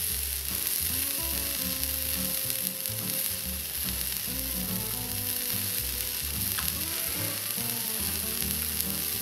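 Grilled beef and mushrooms sizzling steadily on a hot round griddle pan, the burner already switched off.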